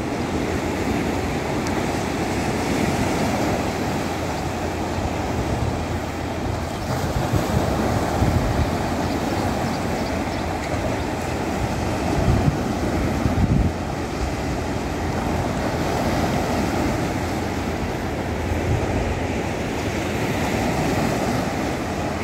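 Small sea waves washing and breaking onto a flat rocky shore, with wind buffeting the microphone in gusts.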